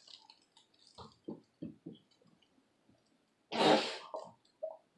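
A girl chewing a mouthful of honey bun: a run of short, soft chewing sounds, about three a second, then one loud breathy huff about three and a half seconds in.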